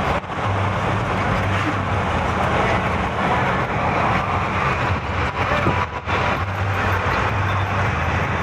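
Car driving along a road: steady engine hum with road noise.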